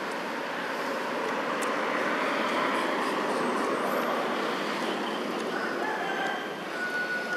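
Steady rushing background noise. Near the end comes a faint call held on a steady pitch, from a distant bird or animal.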